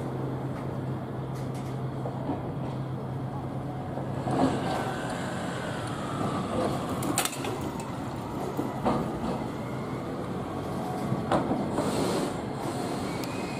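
Iyotetsu 5000-series low-floor tram running slowly around a curve over street track and points. Wheels click sharply a few times over rail joints, and a whine slides down in pitch midway and rises again near the end.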